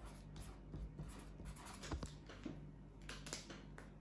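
Faint scratching of writing on paper, in short irregular strokes.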